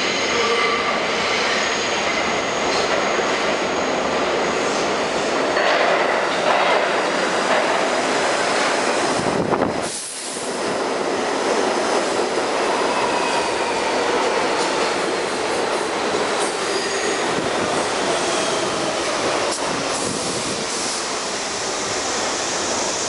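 Bombardier R62A subway train pulling into the station, its cars rumbling along the rails with steel wheels squealing. The noise drops out briefly about ten seconds in, then the rumble continues as the cars keep passing.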